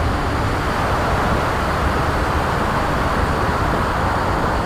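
Airflow rushing over an RC glider's onboard camera during an aerobatic manoeuvre: a loud, steady rushing noise that swells slightly midway.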